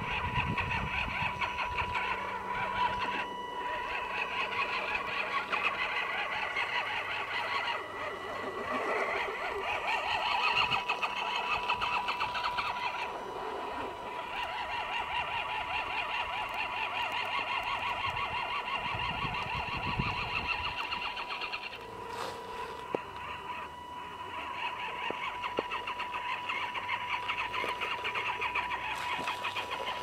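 A 1:10 scale RC crawler's 35-turn brushed electric motor and geared drivetrain whine as it crawls over rock, rising and easing with the throttle and dropping off briefly a little over 20 seconds in.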